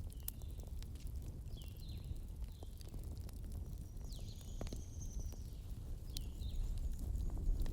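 Wood campfire crackling, with scattered sharp pops and snaps over a steady low rumble. A bird calls several times in short falling chirps, with one longer whistled note near the middle.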